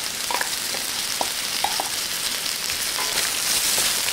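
Cooked turkey pieces sizzling steadily in hot oil in a stainless electric wok, with the carrots and onions. A wooden spatula stirs them, giving a few short scrapes and taps against the metal.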